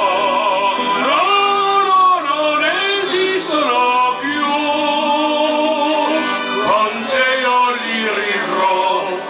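A man singing long held notes into a microphone, accompanied by a red Giustozzi piano accordion playing sustained chords.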